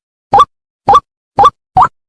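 White-breasted waterhen (ruak-ruak) call, a lure recording for calling the birds in: short, rising notes repeated about twice a second, four in all, with silence between them.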